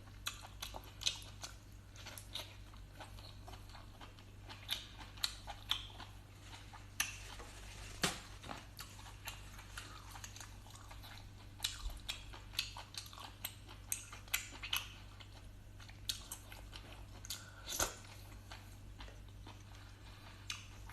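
Close-up chewing of boiled sea snail meat: irregular wet clicks and smacks of the mouth working through the firm, chewy flesh.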